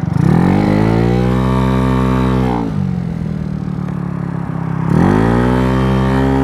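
GY6 scooter's single-cylinder four-stroke engine, bored out to 88cc, revving up under acceleration and holding high revs, dropping off as the throttle is let go about two and a half seconds in, then revving up again near five seconds in. The revs run high on the Polini variator with 6.9-gram rollers, which the rider takes for rollers too light.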